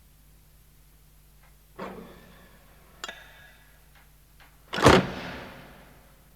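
Door sound effect: a thud and some latch clicks, then a loud slam about five seconds in that rings out for about a second, over faint tape hiss.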